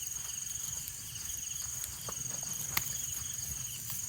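Crickets trilling steadily in a high, pulsing chorus, with a few scattered clicks about halfway through, one sharper than the rest.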